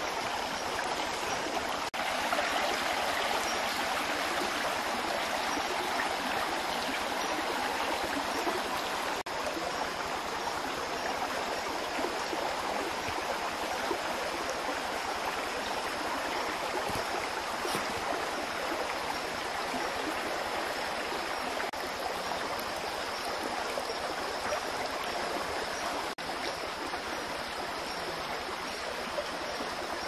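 Steady rushing of a flowing stream, an unbroken wash of water noise, with a faint high steady whine above it.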